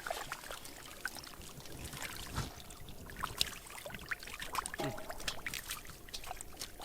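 Water splashing and trickling: irregular small splashes and clicks over a steady running-water hiss.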